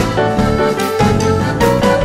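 Instrumental background music with a steady beat, keyboard or piano over drums.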